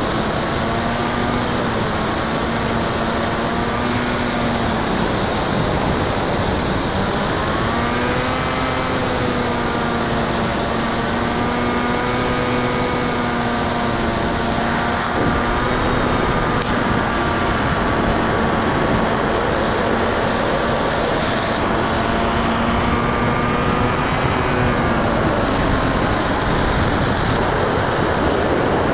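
Brushless electric motor and propeller of a Bixler 2 foam model plane, heard from its onboard camera: a steady whine over heavy wind rush. The pitch sags and recovers twice, as throttle is eased and opened again.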